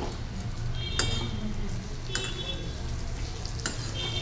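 Metal spoon stirring cubed brinjal in a steel kadhai, scraping and knocking against the pan three times about a second apart, each stroke with a brief metallic ring, over a steady low hum.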